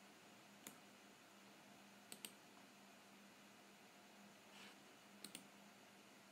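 Faint clicks of a computer mouse and keyboard over near-silent room tone with a faint steady hum: a single click just under a second in, then quick pairs of clicks about two seconds and five seconds in.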